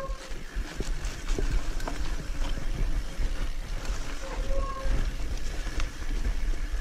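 Steady low rumble of wind on the microphone. A dove coos briefly at the start and again about four and a half seconds in.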